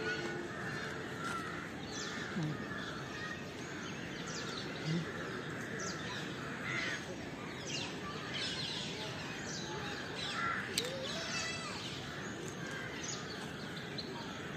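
Many birds chirping and calling, a quick scatter of short chirps over steady outdoor background noise.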